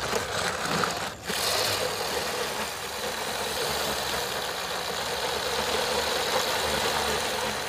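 Battery-powered RC toy Ferrari running, its small electric motor and gears whirring steadily as the wheels spin on concrete. A single knock comes about a second in.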